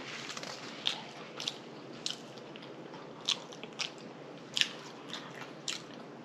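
Close-miked chewing and lip smacking from a person eating a fried whiting fish slider, with sharp wet mouth clicks every half second to a second.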